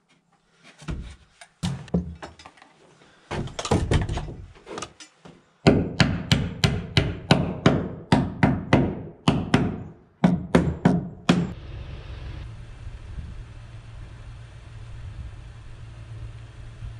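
Runs of hammer blows driving nails into wooden blocking. The blows come quickly and evenly, about three a second at their fastest. About eleven seconds in, they stop and a steady low machine hum takes over.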